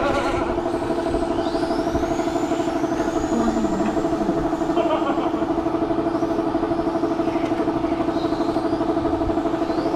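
Electric RC touring cars lapping a wet track: their motors give faint high whines that rise and fall as they speed up and slow down. Under them runs a steady, pulsing mechanical drone, the loudest sound throughout.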